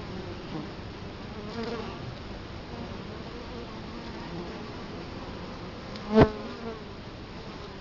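Italian honey bees buzzing at the hive entrance: a steady hum of many bees, with single bees flying past the microphone. One passes very close about six seconds in, a brief loud buzz.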